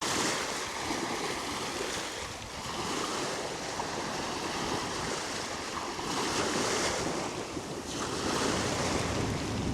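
Sea waves washing onto the shore, the surf swelling and falling back every few seconds, with wind buffeting the microphone.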